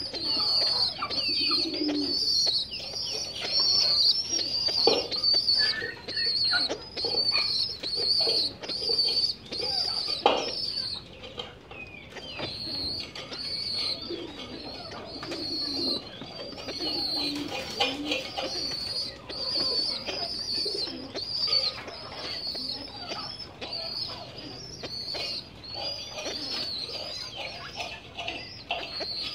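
Lahore pigeon squabs peeping in a high pitch, about two calls a second without pause, over the low coos of adult pigeons and a few short knocks or flaps.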